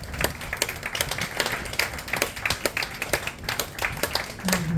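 Audience clapping: many separate hand claps at an uneven rate.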